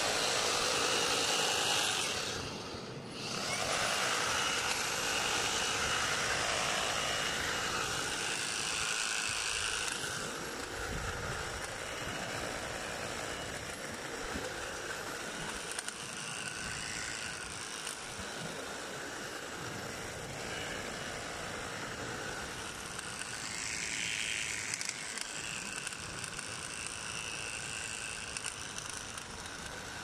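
EGO battery-powered multi-tool with the hedge trimmer attachment running, its reciprocating blades cutting into a conifer hedge. It eases off briefly about three seconds in, then runs on steadily and a little quieter after about ten seconds.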